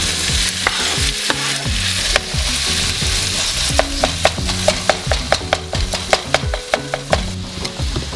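Chopped onions and tomatoes sizzling in a frying pan while a wooden spatula stirs them. In the second half the spatula knocks against the pan in a quick run of sharp taps.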